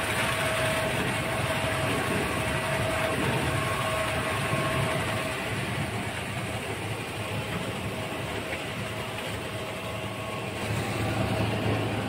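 Plastic film washing line running: motors turning a screw and paddles that churn shredded plastic bag film, a steady mechanical din. A faint steady whine sits in it for the first five seconds or so.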